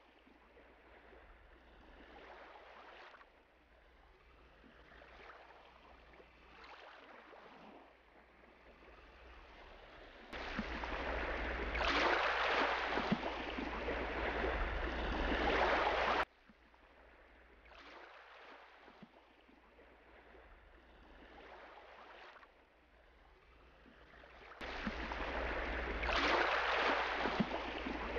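Sea water: waves washing and surging in slow swells. The sound grows much louder about ten seconds in, cuts off abruptly about sixteen seconds in, then builds again near the end.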